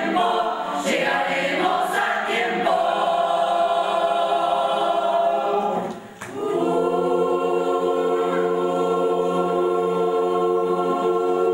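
Choir singing, breaking off briefly about halfway through, then holding one long sustained chord to the close.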